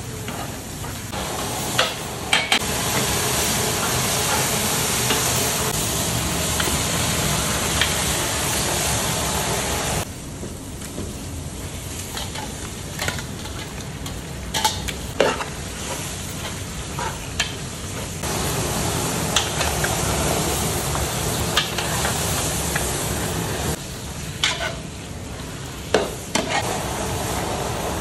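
Spiced masala and meat sizzling in a large aluminium cooking pot while a metal ladle stirs, with sharp scrapes and clinks of the ladle against the pot now and then.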